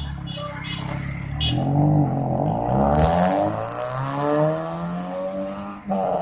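Toyota Yaris TRD's 1.5-litre 1NZ-FE four-cylinder through an HKS Hi Power muffler with no resonator, accelerating away. The exhaust note climbs in pitch, drops back at a gear change about three seconds in, then climbs again until another shift near the end.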